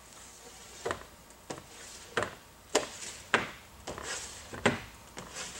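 Blue Max squeegee swiped across the wet glass of a car door window, about seven quick strokes, each a short sharp scrape, clearing the soapy water and dirt off the glass before the tint goes on.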